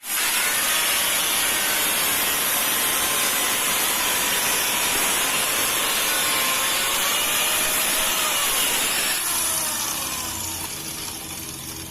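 Angle grinder cutting or grinding, a loud steady hiss with a whine that wavers under load. About nine seconds in, the cut eases off and the grinder winds down.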